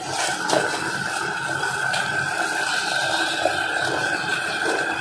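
Water boiling in a small steel saucepan on a gas stove, under a steady high hum, with a few light knocks in the first second.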